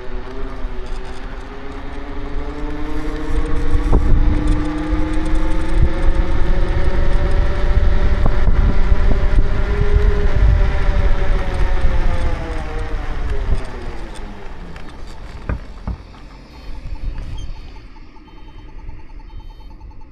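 Electric scooter ridden at speed. The motor's whine rises as it speeds up, holds, then falls away as it slows, over a heavy low rumble. A few sharp cracks come from the scooter, which crackles and creaks badly.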